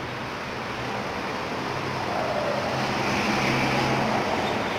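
A motor vehicle passing on the road, its engine and tyre noise growing louder to a peak about three seconds in, then easing slightly.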